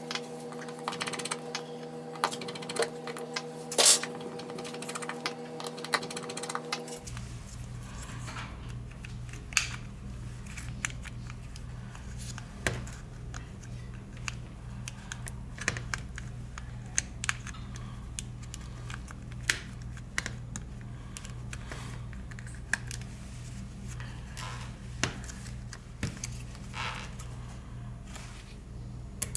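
Scattered small clicks and taps of a screwdriver and a plastic opening pick working the screws and plastic midframe of a smartphone, the sharpest about four seconds in, over a steady low hum that changes about seven seconds in.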